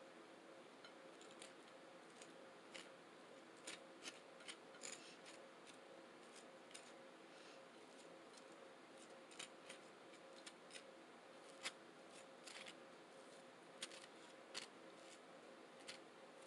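Faint eating sounds close to the microphone: scattered, irregular sharp clicks from chewing and mouth noise, over a faint steady hum.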